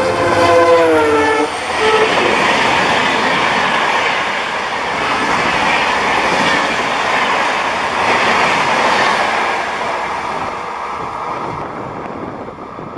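EMD WDP-4 diesel locomotive sounding its horn as it passes at about 130 km/h, a chord held for about a second and a half with its pitch sagging as it goes by, then a short second toot. The passenger coaches follow with a loud rushing of wheels on rail that fades toward the end as the train recedes.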